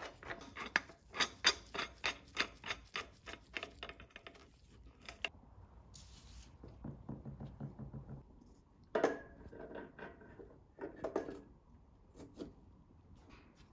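Quick, evenly spaced clicks, about four a second, from hand work on an engine's oil filter housing. After a few seconds they give way to scattered knocks and clinks of metal engine parts being handled.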